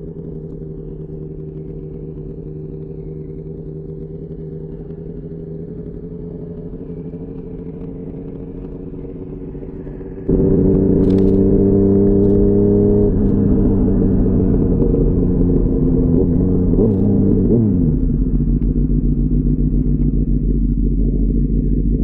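2004 Kawasaki ZX-10R inline-four running through a full Sato titanium exhaust, holding a steady note, then suddenly much louder about ten seconds in, its pitch shifting over the following seconds.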